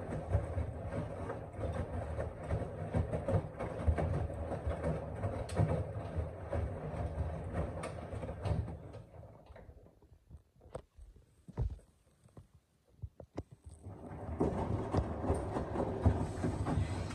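Washing machine drum turning with a steady rumble, stopping for about four seconds around the middle with a few sharp clicks, then starting to turn again.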